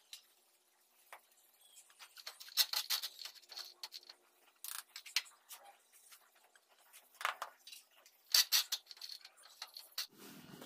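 Steel hand trowel scraping and tapping on a wet sand-cement mortar bed, in short irregular strokes with pauses between them.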